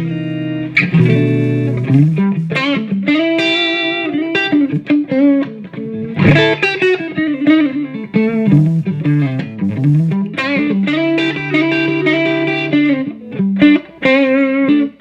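Electric guitar played through a 1939–40 Gibson EH-185 tube amplifier on its neck pickup, a DiMarzio Area 61: single-note lead lines with string bends and vibrato, and a few held chords.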